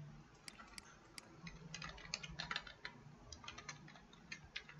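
Faint typing on a computer keyboard: a few single clicks about the first second, then quick runs of keystrokes from about a second and a half in.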